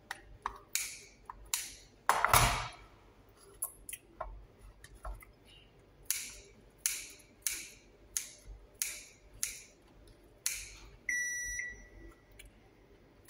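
Kitchen scissors snipping through cooked steak in a bowl: a run of short sharp snips, at about two a second in the middle stretch. A louder half-second scrape comes about two seconds in, and a short electronic beep sounds near the end.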